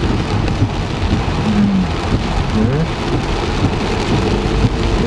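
Heavy rain falling on a car, a loud steady hiss heard from inside the cabin.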